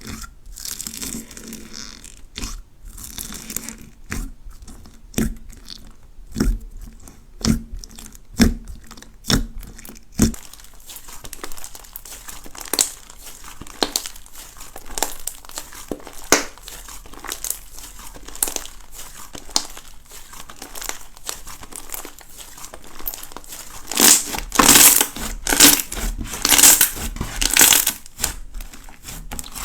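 Hands squeezing and pressing slime coated with small crunchy balls, giving irregular crackling, crunching and popping snaps. The crackling grows louder and denser near the end.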